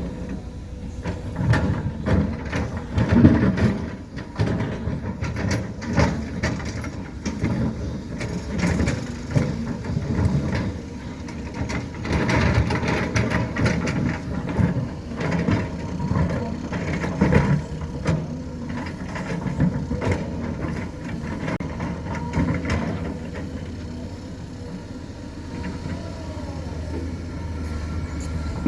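Diesel engine of heavy earthmoving machinery running, with repeated clanks and knocks from the machine working, busiest in the first two-thirds and settling to a steadier engine hum near the end.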